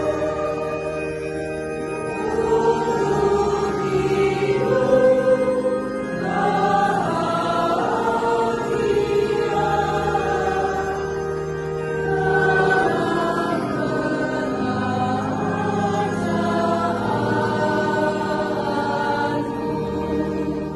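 Children's school choir singing an Indonesian hymn in long held notes.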